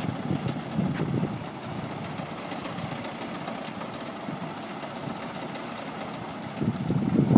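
Diesel engine of an Iveco lorry running at low revs as the truck creeps forward at walking pace, a steady low rumble that swells slightly about a second in and again near the end.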